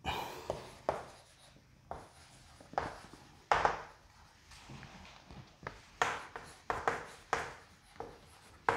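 Chalk writing on a chalkboard: short, irregular taps and scratches as words are written out.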